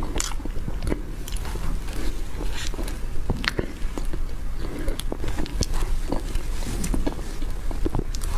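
Close-miked eating sounds: a person chewing soft whipped-cream sponge cake from a spoon, with many short, irregular mouth clicks.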